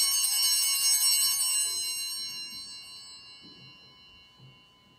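Altar bells (sanctus bells) rung at the elevation of the chalice to mark the consecration. A cluster of small bells is shaken for about a second and a half, then left ringing out and fading away over the next few seconds.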